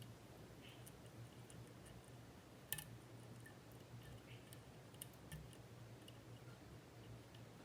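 Faint, scattered clicks and light scratching of a lock pick working the pins of a Mul-T-Lock Junior lock under tension, with one sharper click about three seconds in.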